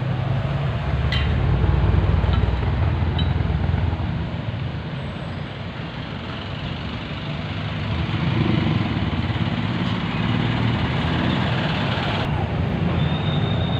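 Road traffic: the rumble of passing vehicles, swelling about two seconds in and again around eight seconds, with a few faint clicks.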